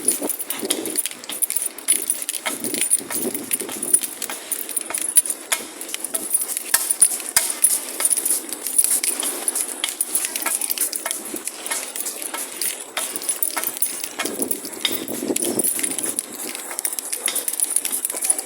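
A person running and breathing hard, with footfalls and the rattle and knock of things being carried, as heard on a handheld recording on the move. Irregular clicks and knocks with a steady high hiss under them.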